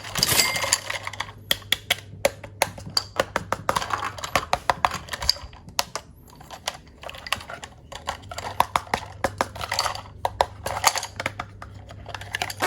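Plastic toy parts being handled, with many sharp, irregular clicks and taps in quick succession over a faint steady low hum.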